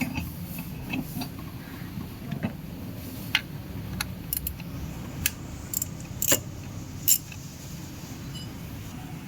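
Scattered light metallic clinks and clicks of bolts and hand tools being handled on an engine, over a steady low hum.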